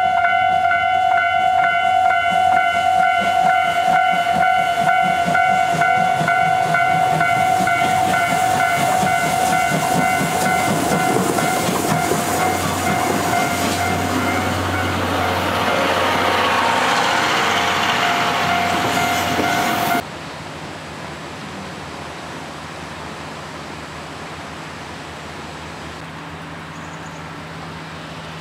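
C11 207 steam tank locomotive passing close by, working with chuffing exhaust that swells as it goes past, while a level-crossing alarm rings steadily for the first half or so. About twenty seconds in the sound cuts off abruptly to a much quieter steady hiss with a low hum.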